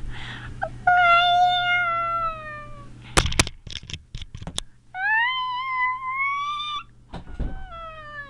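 A young child imitating a cat: three long, drawn-out meows, the first falling slightly in pitch, the second rising, the third falling. Between the first two meows comes a quick run of sharp knocks, with one more knock just before the last meow.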